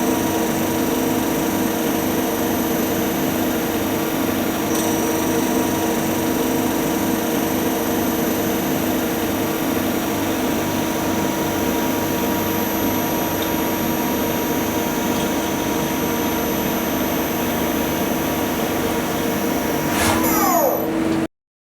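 Metal lathe running during internal turning (boring) with an indexable-insert boring bar: a steady mechanical noise carrying several constant tones. Near the end the tones sweep downward, then the sound cuts off abruptly.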